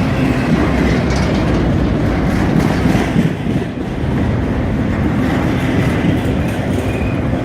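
Freight train cars, empty flatcars among them, rolling past: a loud, steady rumble of steel wheels on rail, with a faint high squeal above it.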